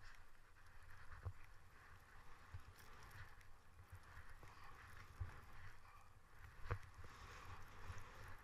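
Faint hiss of skis gliding through powder snow, over a low rumble with frequent small thumps and a few sharp knocks, the loudest about two-thirds of the way through.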